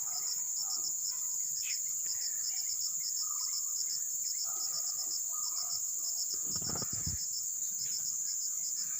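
Steady high chorus of forest insects with a pulsing trill about four times a second, small birds chirping now and then, and a brief low rustle about seven seconds in.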